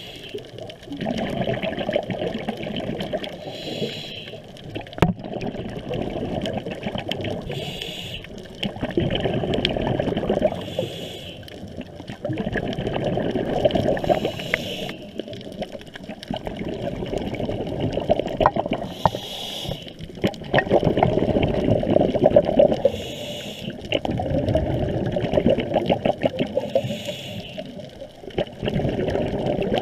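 Underwater breathing of a scuba diver through the regulator, heard from underwater. Exhaled bubbles rumble and gurgle in swells of a few seconds, and a short hiss comes about every four seconds.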